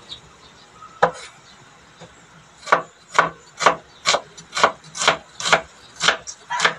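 Kitchen knife chopping a red onion on a wooden chopping board: one cut about a second in, then steady even chops about two a second.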